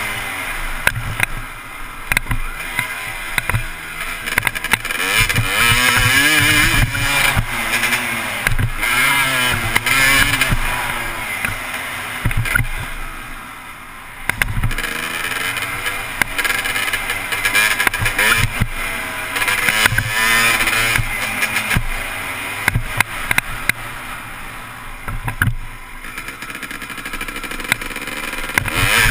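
Motocross dirt bike engine revving up and down through the gears while riding a track, its pitch rising and falling over and over, easing off briefly about halfway through.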